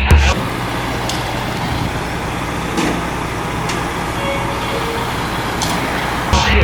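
Steady street traffic noise, an even wash of passing vehicles, with a few faint clicks.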